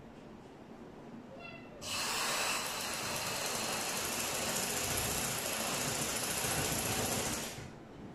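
Sewing machine running steadily as a trouser seam is stitched, starting about two seconds in and stopping just before the end, about six seconds of sewing.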